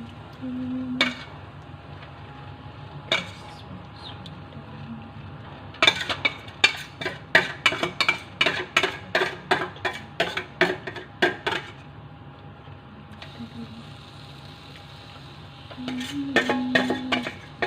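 A utensil clinking repeatedly against a dish, in a quick run of about three or four clinks a second lasting some five seconds through the middle, with a few single clinks around it over a faint steady kitchen hum.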